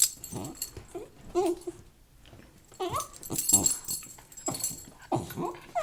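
A pet dog vocalizing in reply: a string of short whines and grumbles, each gliding in pitch.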